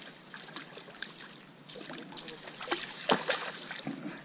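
Water splashing and sloshing at the surface, with scattered sharp clicks and a louder surge about three seconds in, as a hooked perch is drawn in and landed.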